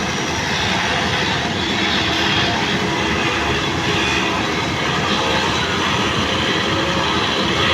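A heavy vehicle or machine engine running steadily at a railway construction site, a loud even noise that does not change.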